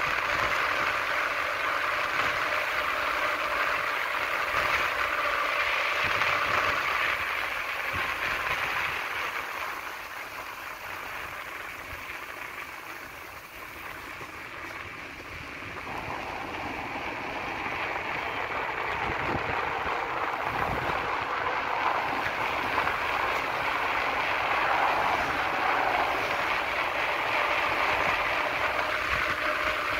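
Steady rush of wind and wheel noise on asphalt from a fast downhill descent of a mountain road, easing off for a few seconds around a bend midway and building again afterwards.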